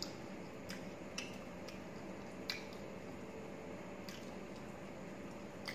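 Eating by hand: chewing and fingers mixing rice on a steel plate, with about six short, sharp, wet clicks spaced irregularly over a steady faint hum.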